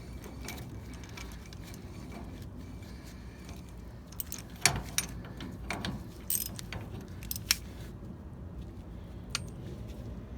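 Steel adapters of a ball joint press kit clinking as they are handled and picked through, with a handful of sharp metallic clicks in the middle, over a low steady background hum.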